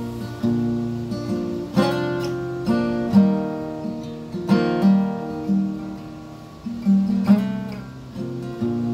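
Electric guitar playing a slow chord intro on its own, chords struck every second or so and left to ring, with a bent note about seven seconds in.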